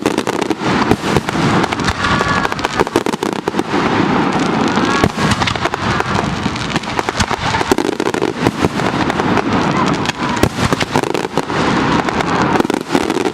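Aerial fireworks bursting in a dense barrage: rapid, overlapping sharp bangs and crackle with no let-up, and voices underneath.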